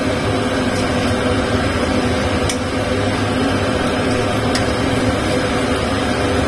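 A steady kitchen hum with a few faint tones under sauce boiling in a steel wok on a gas hob, with a few light clicks of a metal ladle stirring in cornstarch slurry to thicken it.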